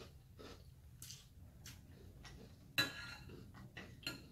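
Metal spoon clicking and clinking against a glass bowl of cereal: a few light clicks, with one louder, briefly ringing clink about three seconds in.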